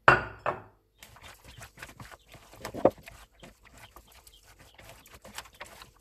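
A brief pour of olive oil from a glass bottle, then hands tossing thin slices of raw sweet potato in a bowl: dense, irregular crackly rustling and clicking of the slices against each other and the bowl, with one louder click about three seconds in.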